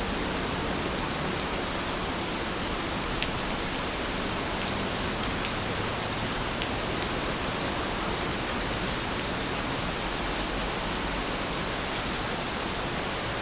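Steady rainfall, an even hiss with a few single drops ticking out sharply now and then.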